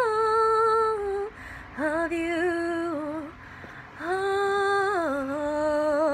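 A girl's voice singing unaccompanied: long held, wordless notes with short breaks between them. The last note drops lower and wavers with vibrato.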